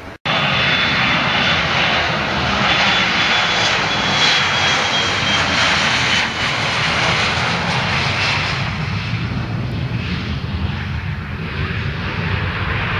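Embraer E170 regional jet's turbofan engines at takeoff power during the takeoff roll and liftoff: a loud, steady jet rush that cuts in suddenly just after the start, with a high whine slowly falling in pitch over the first six seconds.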